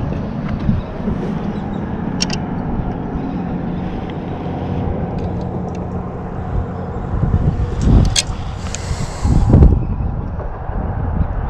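Steady low rumble of background noise, with a few sharp clicks and two louder low thumps late on.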